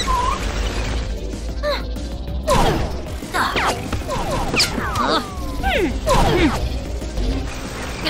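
Cartoon action score with sound effects: a steady low rumble, several sharp hits, and a run of quick falling-pitch zaps and whooshes in the middle.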